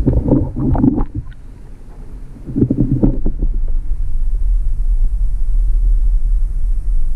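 Muffled low rumble of water moving around a camera held underwater, with a cluster of knocks and bumps in the first second and another around three seconds in. After that the rumble becomes steady and louder.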